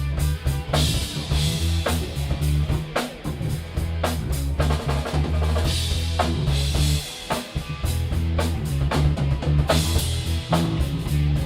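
Live rock band playing, with the drum kit out front: regular bass-drum and snare hits over a bass guitar holding low notes.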